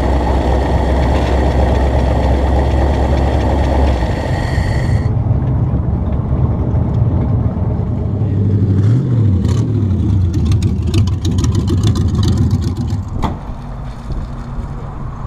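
Carbureted hot rod engine with open intake stacks, idling steadily and then revved twice about nine seconds in, the pitch rising and falling each time.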